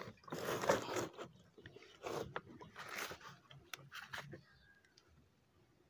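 Rustling, scraping and light clicks from a battery knapsack sprayer's shoulder strap being moved against its plastic tank. The sounds are irregular and stop about four and a half seconds in.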